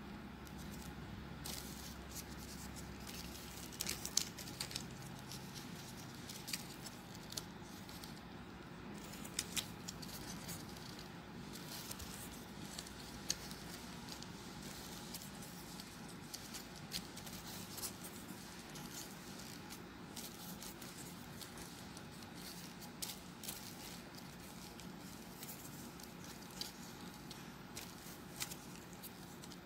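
Folded paper triangle units of a 3D origami model rustling and clicking as they are handled and slotted together: scattered small crisp ticks and rustles over a faint steady hum.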